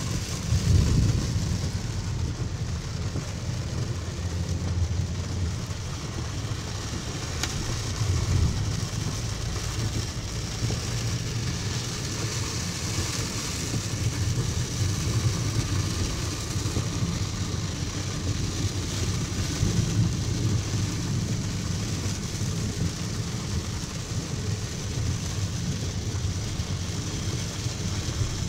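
Steady car engine and tyre rumble heard from inside the cabin while driving slowly through a heavy rainstorm, with the hiss of rain on the car and wet road.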